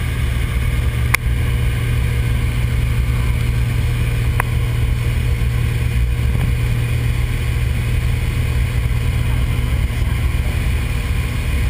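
Light aircraft's engine and propeller droning steadily, heard from inside the cabin of a skydiving jump plane in flight. There are two brief sharp clicks, about one second and four seconds in.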